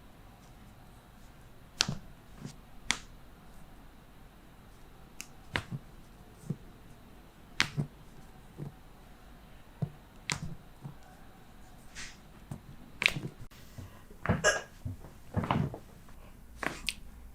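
Chiropractic adjustments: a string of sharp joint cracks and pops, a dozen or so spaced a second or two apart, with a cluster of louder, rougher knocks and rustling near the end.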